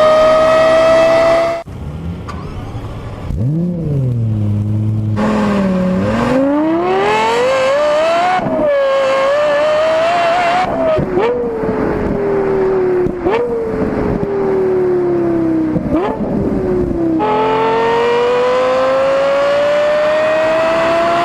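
Lexus LFA's 4.8-litre V10 revving high through its triple exhaust, heard in several spliced clips. There is a low rev blip, then a long climb in pitch. Next comes a slowly falling pitch broken by three brief sharp blips, like rev-matched downshifts. Near the end there is another steady climb.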